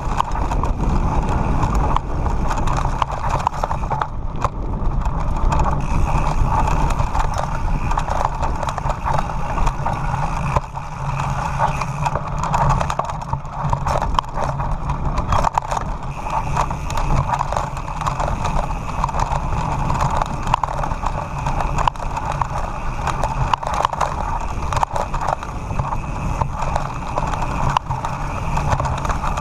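Mountain bike descending fast on a rough gravel track: tyres crunching over loose stones and the bike rattling with constant small knocks, over a steady low rumble of wind on the microphone.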